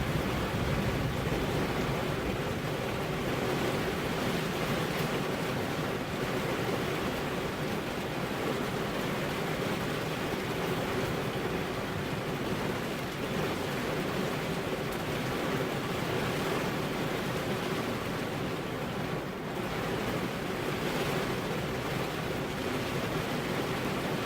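Steady heavy rain falling, a continuous even hiss with no single drops standing out.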